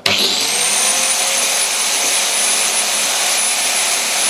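Interskol UShM-125/900 angle grinder switched on and running with no load: the motor spins up in about half a second with a rising whine, then runs at full speed with a steady high-pitched whine.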